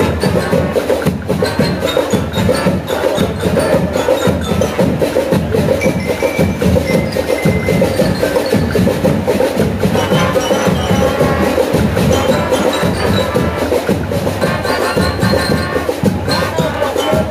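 School marching band playing: trumpets, trombones and saxophones over a steady, even drum and percussion beat.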